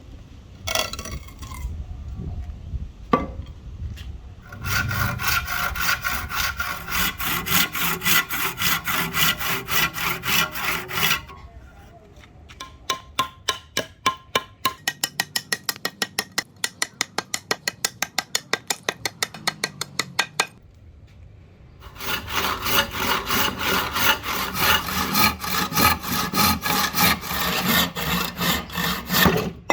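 A hand tool working a block of rosewood in fast, even back-and-forth strokes. There are two long spells of strokes, with a spell of sharper, evenly spaced clicking strokes between them.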